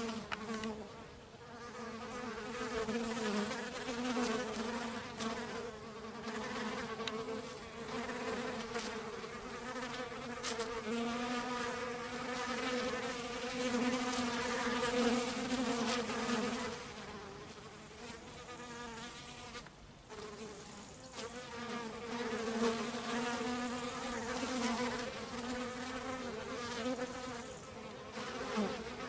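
Honeybees buzzing in flight close by: a steady wing hum with a slightly wavering pitch, easing off for a few seconds past the middle before coming back.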